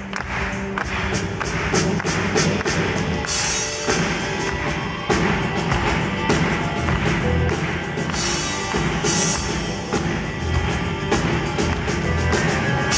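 Live band playing an instrumental passage without vocals: acoustic and electric guitar over drums, with steady drum hits and cymbals splashing several times.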